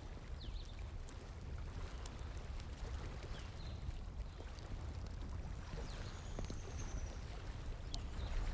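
Steady rush of flowing water with a low rumble, over which a wood fire gives sparse sharp crackles and pops, a few seconds apart.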